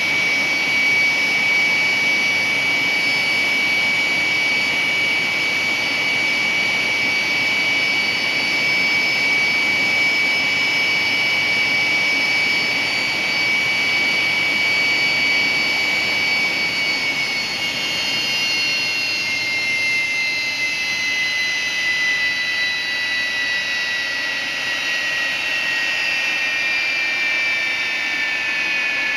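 Turbine engine running on a test stand: a steady roar with a high compressor whine. From a little past halfway the whine glides steadily down in pitch as the engine slows.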